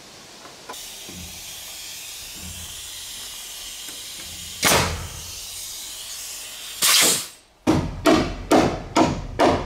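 Pneumatic framing nailer driving nails into the wooden roof framing, over a steady hiss: two sharp shots, the second and loudest about seven seconds in, then a quick run of about five more near the end.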